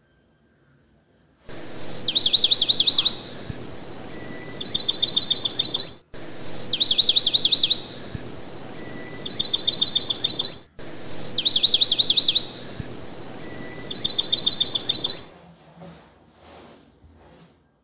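Recorded bird song played three times over, the same phrase each pass: a single high chirp, a run of quick downward-sliding chirps, then a fast high trill, over a steady hiss. It starts suddenly about a second and a half in and stops about fifteen seconds in.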